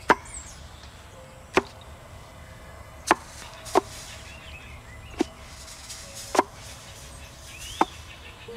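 Wooden pestle pounding in a large wooden mortar: seven separate thuds, about one every second and a half.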